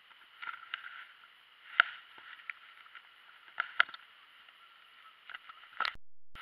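Handling noises in a plastic kayak as a fish is put into a fabric bag: scattered sharp knocks and clicks with light rustling, the loudest knocks about two and four seconds in. The sound drops out briefly near the end.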